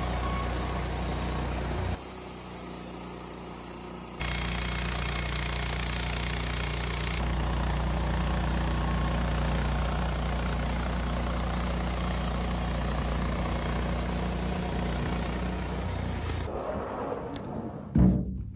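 Woodmizer LT15 Start band sawmill running steadily while edging pine flitches, its level and tone changing abruptly a few times. A sharp knock sounds just before the end.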